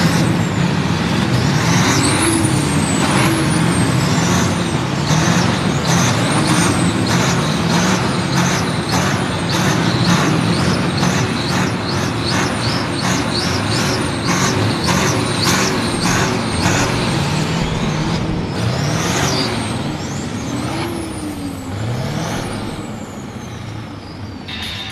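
A heavy machine's engine revving up and down repeatedly. Through the middle there are sharp clicks with high squeals about twice a second, and the sound grows quieter near the end.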